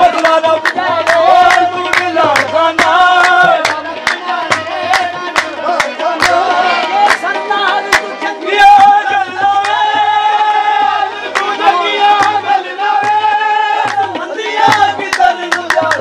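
Qawwali: male voices singing long, ornamented held lines over two harmoniums, with a steady beat of sharp percussion strikes.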